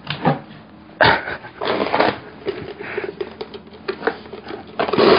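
Knocks and clatter as a countertop blender is handled. Near the end its motor switches on and runs, grinding dry bread crumbs.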